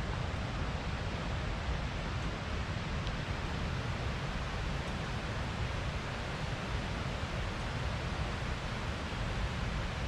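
Steady outdoor rushing noise, even throughout, with a low, fluctuating rumble beneath it.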